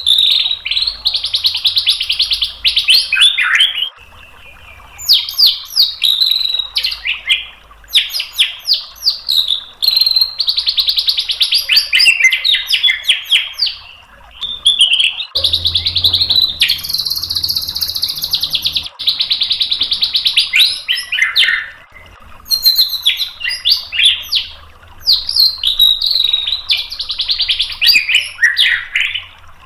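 White-rumped shama (murai batu) singing: loud, fast phrases of rapid repeated and buzzy notes a few seconds long, broken by short pauses. It is a full song with many mimicked 'isian' phrases.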